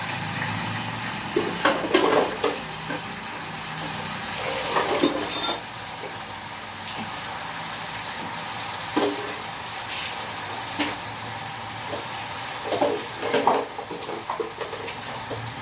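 Raw chicken pieces sizzling in hot oil in a pan after the garlic and onion have been sautéed, a steady frying hiss. A few brief knocks and rustles break in at intervals.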